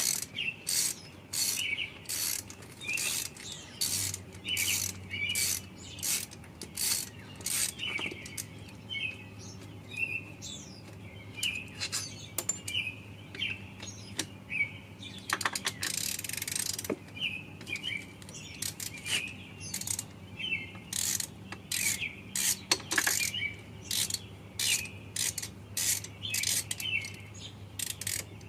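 Hand ratchet wrench clicking in quick repeated strokes, about two a second, with a low steady hum coming in about four seconds in.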